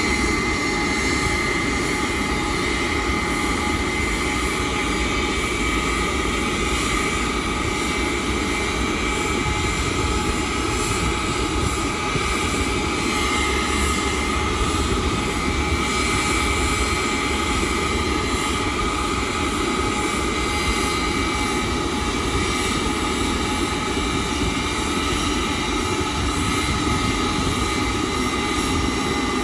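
Boeing 747-400 LCF Dreamlifter's four Pratt & Whitney PW4062 turbofans at taxi power. They give a steady rumbling rush with a constant high whine in several pitches.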